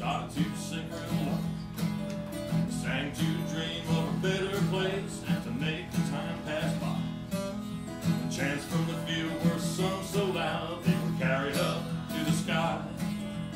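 Acoustic guitar strummed in a blues rhythm, with a man singing over it.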